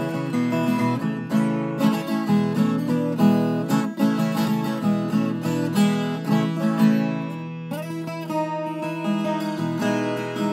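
Viola caipira, the ten-string Brazilian folk guitar, played solo: quick runs of plucked notes mixed with strummed chords, easing onto a ringing chord about two-thirds of the way in before the notes pick up again.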